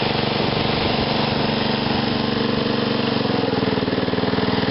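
John Deere 108 riding mower's 8 hp Briggs & Stratton single-cylinder engine running steadily, still warming up just after a cold start. Its speed sags slightly a little over three seconds in.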